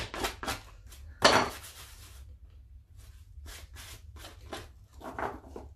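Paper being peeled off a journal page: a string of short tearing, rasping strips, the loudest about a second in, with a brief pause near the middle.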